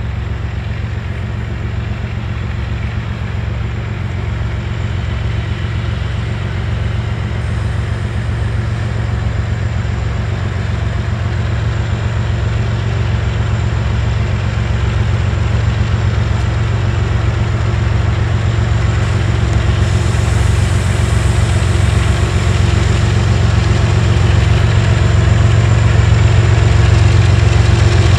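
Diesel engines of BNSF freight locomotives heading an oil train, running steadily with a deep hum that grows louder as the train approaches.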